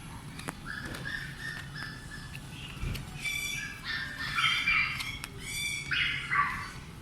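Toy poodle puppy whining and yelping in short, high-pitched cries: soft whines at first, then louder, sharper yelps from about three seconds in.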